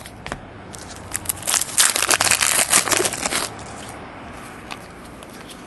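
Plastic wrapper of a trading-card pack crinkling for a couple of seconds, starting about a second in, as the pack is opened and the cards are pulled out, with a few light clicks of cards being handled.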